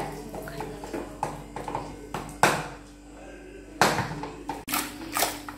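Sweet potato chunks knocking and clattering against the sides of an aluminium pressure cooker as they are tossed with water and salt: irregular knocks, the loudest about two and a half and four seconds in.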